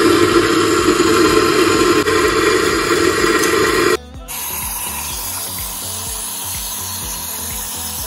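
Electric coffee grinder running steadily, grinding beans into a portafilter, until it stops abruptly about four seconds in. Then an espresso machine's steam wand hisses steadily as it froths milk in a steel pitcher.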